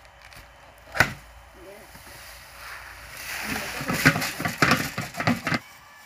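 Boiled paddy and its water tipped out of a large metal cooking pot onto a sheet, sloshing and pouring for about two seconds near the end, after a single sharp knock about a second in.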